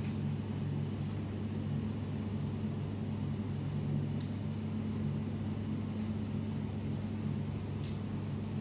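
Steady low machine hum of room equipment, with a constant drone and two faint ticks, one about four seconds in and one near the end.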